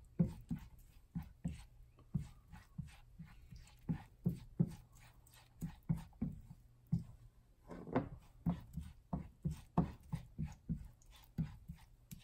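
Silicone spatula scraping and tapping against a nonstick frying pan as chopped green onions are stirred in oil, in short irregular strokes about two to three a second.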